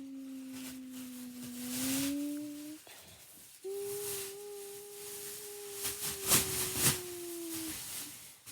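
Mock Emergency Alert System alarm: a low, steady electronic tone that drifts slowly in pitch. It cuts out for under a second about three seconds in, returns higher and slowly sinks, then breaks briefly again near the end. Bursts of hiss break in around two seconds and, loudest, between six and seven seconds.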